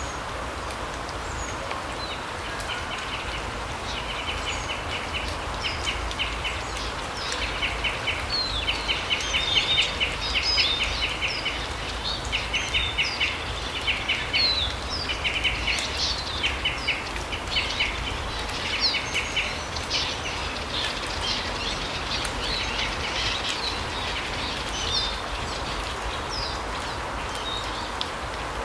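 Small songbirds calling: many short, rapid trills and high chirps, most of them between about two and twenty seconds in, with scattered chirps after that. Under them runs a steady background hiss.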